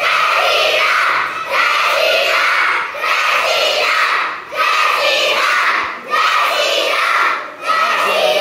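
A group of children chanting a short slogan loudly in unison, one phrase about every second and a half.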